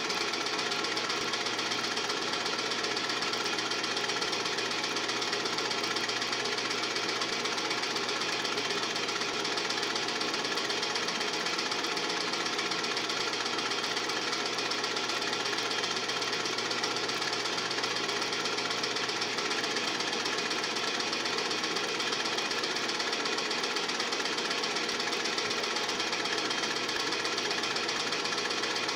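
Film projector running: a steady, rapid mechanical clatter that does not change.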